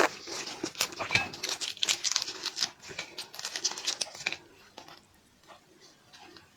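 Shrimp shell being peeled by hand, a dense crackling and tearing for about four seconds, then quieter handling.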